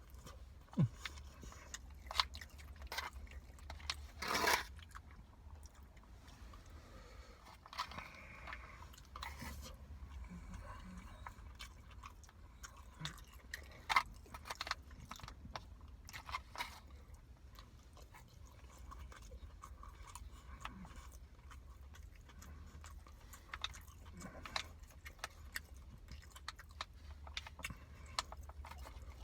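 Close-miked eating of chicken biryani: scattered chewing, crunching and biting sounds with sharp clicks, over a steady low hum.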